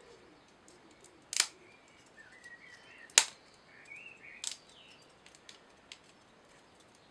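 Small plywood kit parts clicking as they are handled and pushed together: three sharp clicks over the first five seconds, then lighter ticks. Faint high warbling chirps sound in the middle.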